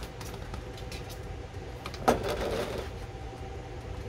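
A single sharp knock about two seconds in, then a brief scrape as garlic butter is scooped into a measuring cup. A steady low hum runs underneath.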